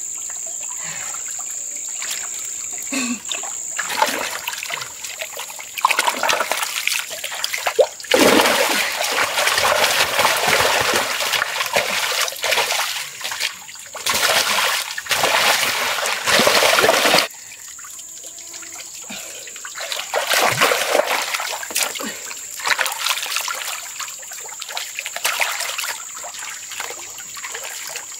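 Shallow, muddy pond water splashing and sloshing as hands grope through it and legs wade while catching fish by hand. The splashing comes in irregular bursts, with a long loud stretch in the middle and another burst a few seconds later.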